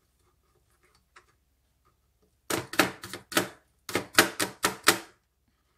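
Chef's knife chopping garlic finely on a plastic cutting board: a quick run of about ten sharp knocks, about four a second, starting about two and a half seconds in.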